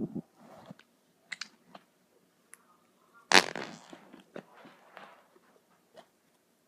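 Fart sound effect: one short noisy burst about three seconds in, fading quickly, with faint scattered clicks in the quiet around it.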